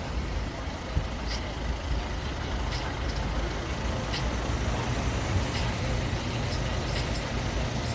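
Steady low rumble of motor-vehicle traffic, with a few faint short ticks above it.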